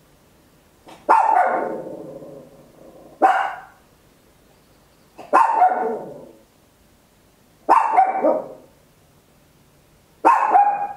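A Papillon, a tiny dog, barking very loudly: five sharp barks about two seconds apart, with quiet between them.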